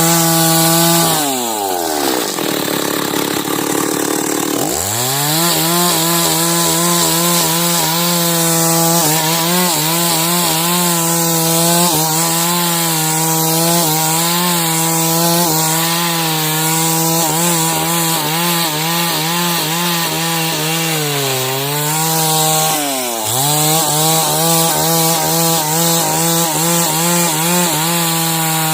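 Two-stroke chainsaw ripping timber into beams, running at high revs under load. About a second in it drops to idle, it revs back up about five seconds in, and it bogs down briefly twice near the end before picking up again.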